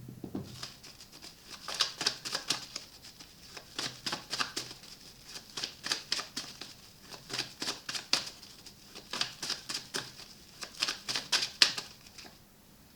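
Tarot cards being shuffled and handled: a run of quick, irregular papery clicks and slaps, several a second, that stops shortly before the end.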